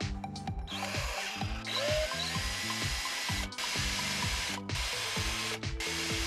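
A power tool motor running in three long bursts with short stops between them, over background music with a steady beat.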